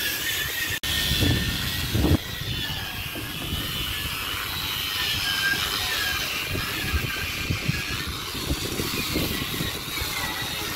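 Hand-held electric grinder running against a steel ship's deck to take off rust, a high whine that wavers in pitch as the load changes. A couple of low thumps come in the first two seconds.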